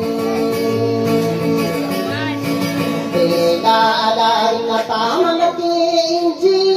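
A man singing long held notes into a microphone, with some wavering in pitch, over a guitar accompaniment.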